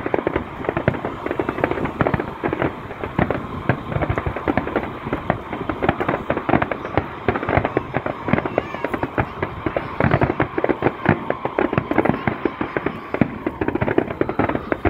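Aerial fireworks going off in a rapid, unbroken run of bangs and crackles, several a second.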